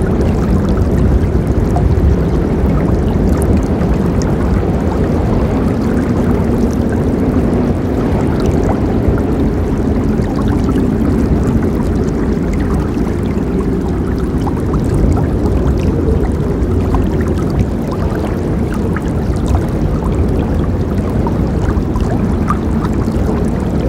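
Forest river flowing: a steady, low rushing of water with faint small splashes and gurgles scattered over it.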